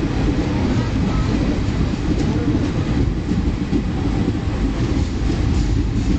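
Moving train heard from on board: a steady low rumble and rattle of the wheels on the track.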